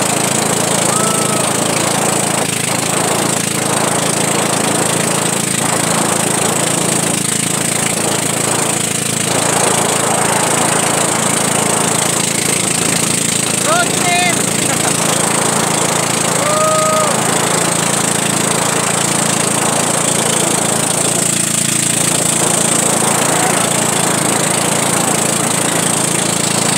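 Engine of a motorized outrigger boat running steadily at speed, with wind rushing over the microphone and the hiss of water against the hull.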